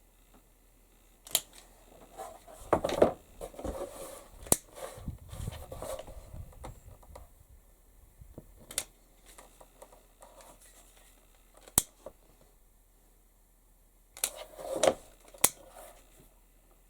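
Hand leatherwork handling at a bench: scattered sharp clicks and knocks of tools and leather, with bursts of rustling between them, the busiest stretch near the start and another cluster near the end.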